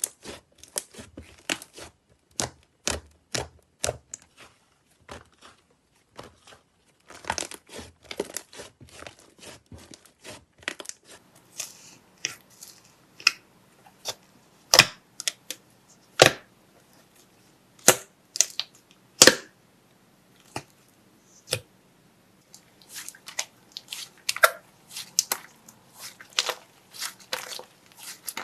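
Slime being pressed, stretched and pulled in the hands, giving irregular sharp clicks, snaps and crackles, some in quick clusters, with brief pauses between.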